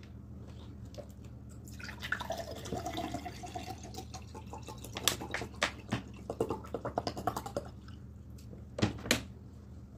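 Close-miked mouth sounds of eating rice and stew by hand: wet chewing and lip smacks, busiest from about two seconds in, with a few sharper clicks near the end, over a steady low hum.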